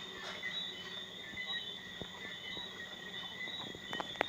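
Scattered raindrops tapping, with a cluster of taps near the end, over a steady high chorus of night insects.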